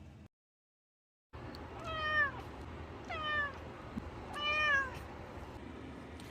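Cat meowing three times, each meow a drawn-out call falling in pitch, about a second apart, after a second of dead silence.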